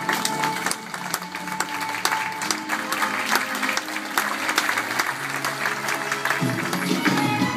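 Audience applauding, a dense patter of clapping over the show's backing music.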